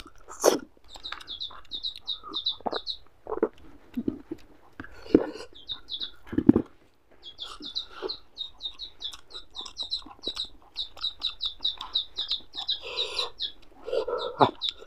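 Eating by hand, close to the mouth: chewing and lip smacks on a mouthful of rice and fish curry. Behind it a bird chirps quickly and repeatedly, high-pitched, about five chirps a second, in a short run near the start and a longer run from about halfway to the end.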